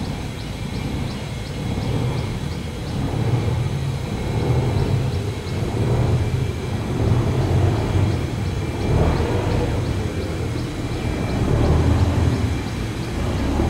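Low diesel engine rumble of a river cargo barge running, swelling and easing several times.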